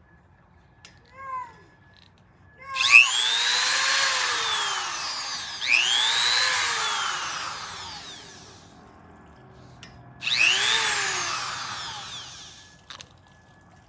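GOXAWEE rotary tool's electric motor switched on three times, each time whining quickly up to speed and then winding down as it coasts to a stop. A short faint blip comes just before.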